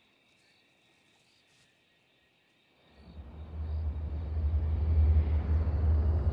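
Near silence with faint, steady high-pitched chirring, like night insects. About three seconds in, a deep, low rumbling drone fades in and swells to loud, the start of a dark soundtrack music cue.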